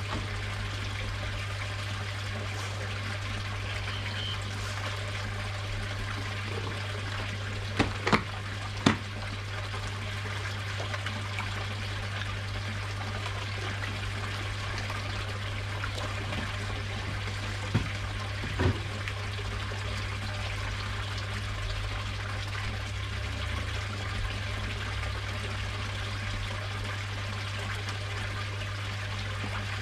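Steady trickle of running water in a garden koi pond over a constant low hum, with a few short sharp clicks or splashes about eight seconds in and again around eighteen seconds.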